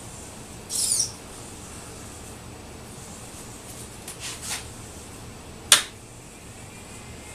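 A hobby robot being handled: a short high squeak about a second in as its arm is set by hand, a few faint scrapes around four seconds, and one sharp click near six seconds as a hand works the base, over a steady hiss.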